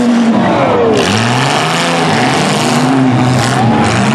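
Several demolition derby cars' engines revving at once, their pitch rising and falling as the cars manoeuvre, over a dense wash of noise.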